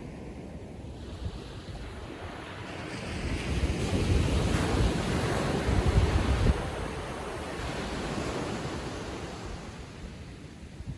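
Calm ocean surf: a small wave breaking and washing up the beach, swelling about a quarter of the way in and easing off over the next few seconds, with wind rumbling on the microphone.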